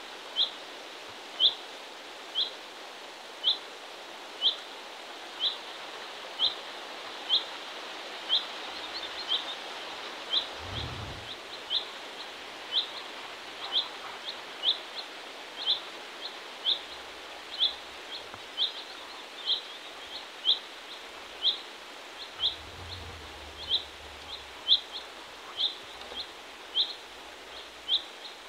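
A small bird repeating one short, clear, slightly rising call about once a second, very evenly, over a faint outdoor hiss.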